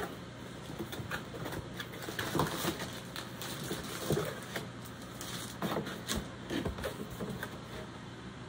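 A long cardboard diamond-painting kit box being handled and opened, and a rolled canvas in plastic wrap taken out of it: scattered rustles, scrapes and light knocks over a steady low hum.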